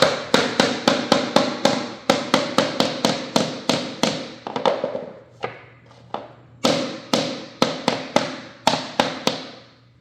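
Rapid hammer taps on a laminate floor plank, about four a second, seating the new plank into place. There is a short pause midway, then another run of taps.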